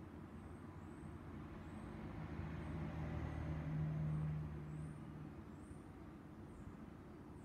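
A motor vehicle going by outside, heard from indoors: a low engine hum swells about two seconds in, peaks, and fades back after about five seconds, over a steady low background hum.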